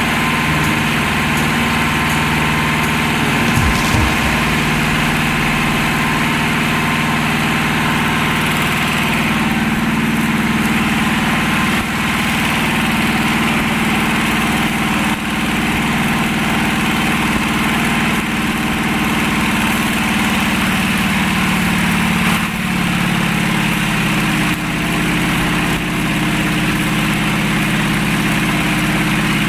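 A machine running steadily: a low, even drone of several hum tones with a continuous hiss above it, dipping slightly now and then.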